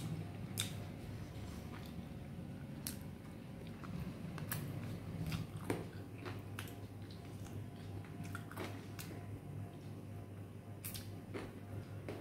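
A person biting and chewing a piece of chicken eaten by hand, with scattered small mouth clicks and smacks over a steady low hum.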